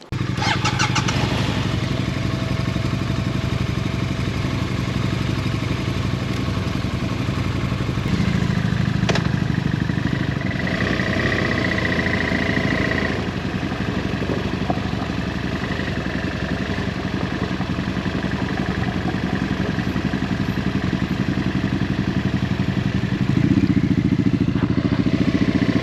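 Motorcycle engine starting and then running at idle. It gets louder for a few seconds about eight seconds in, and steps up again near the end.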